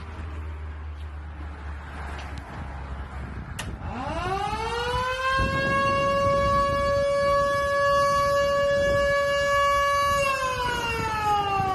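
Firehouse warning siren on its monthly test: about four seconds in it winds up, rising in pitch to a loud steady tone, holds it for about six seconds, then begins to wind down, falling in pitch, near the end.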